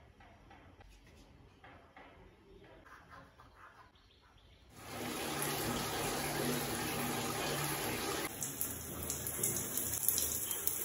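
Handheld shower head spraying water: a steady hiss that starts suddenly about halfway in, after a few seconds of faint rustling and handling.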